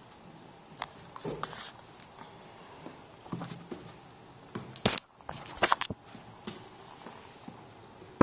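A puppy scuffling right at the camera, its fur and paws brushing and knocking against it: scattered rustles and clicks, with a few sharp, loud knocks a little past the middle.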